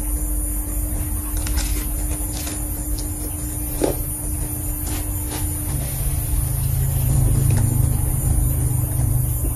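Close-up mouth sounds of chewing a lettuce-wrapped rice-noodle bite, with scattered small crunches and clicks. Under them is a steady low rumble that swells about six seconds in and eases near the end.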